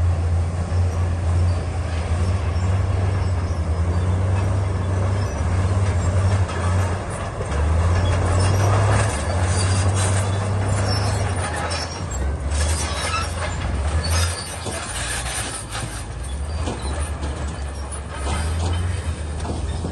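Komatsu D68E bulldozer working: its diesel engine runs with a deep, steady drone whose pitch shifts slightly as the load changes, over a rough, noisy layer of clatter and knocks that grows busier through the middle.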